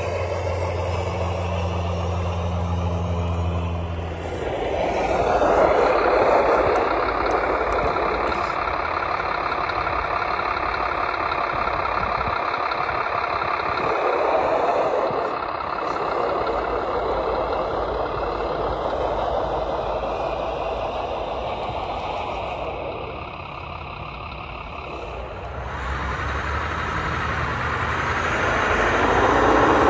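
Radio-controlled 8x6 model semi truck running: a steady low hum for the first four seconds, then a buzzy drivetrain whine that rises and falls as it drives. The whine drops off around twenty-three seconds in and climbs again near the end.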